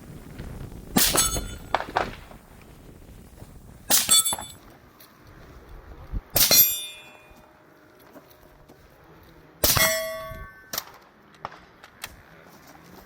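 Metal being struck: four loud clangs a few seconds apart, each ringing briefly, with a few fainter knocks between them.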